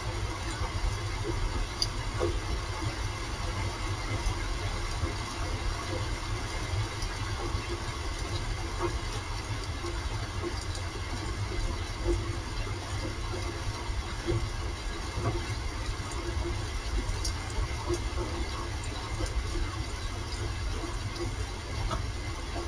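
Steady rain: an even hiss with scattered faint drop ticks over a constant low rumble.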